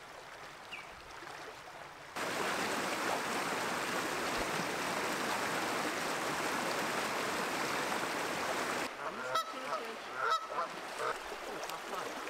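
Steady rush of fast stream water, loud from about two seconds in and cutting off abruptly near the end, where a few short pitched sounds follow.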